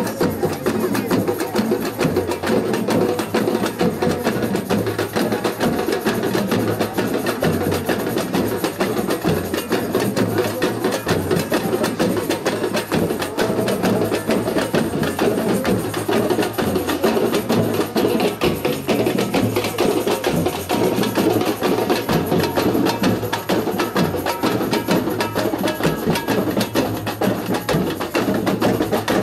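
Batucada samba percussion ensemble playing a dense, unbroken groove of drums and hand percussion.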